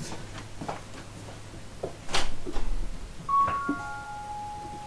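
Home alarm system's electronic chime: a short run of clear tones about three seconds in, the last one held on, sounding because a door had not quite latched shut. Just before it, a brief scuffing noise.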